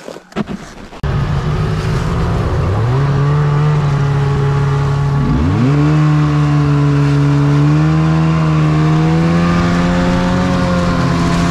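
Snowmobile engine running under way, heard from the rider's seat. The engine note climbs about two seconds in, drops sharply and picks back up around five seconds in, then holds steady.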